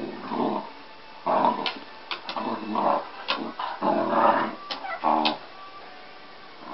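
Dog growling in a run of short, rough bursts during a tussle with a cat, with a few sharp clicks among them; the growls stop about five and a half seconds in.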